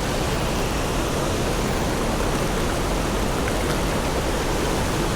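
Steady rush of a fast-flowing trout stream, an even wash of moving water.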